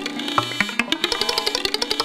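Eurorack modular synthesizer patch playing a fast, uneven stream of short percussive plucks and clicks, about ten a second, with pitched notes that keep changing.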